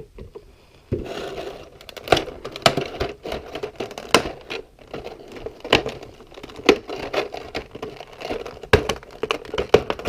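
Figure packaging being handled and unpacked by hand: crinkling with many sharp clicks and cracks, starting about a second in.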